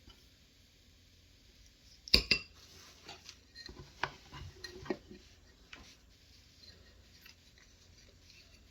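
A spoon knocking against a bowl while minced meat filling is scooped out: two sharp knocks about two seconds in, then a few lighter clinks over the next three seconds.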